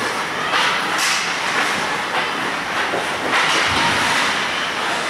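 Ice hockey play: steel skate blades scraping and carving the ice, with a few sharp knocks of sticks and puck.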